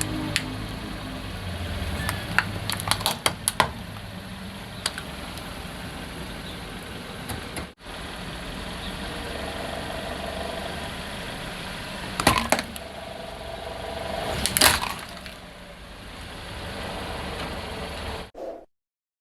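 Car tyres rolling over and crushing plastic objects. There is a string of sharp cracks and snaps about two to four seconds in, then two louder cracks near twelve and fifteen seconds, over the low steady running of the car.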